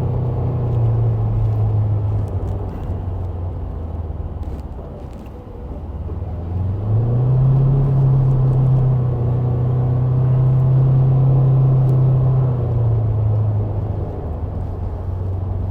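A vehicle engine running. It eases off about six seconds in, then climbs in pitch and holds at higher speed before settling back near the end.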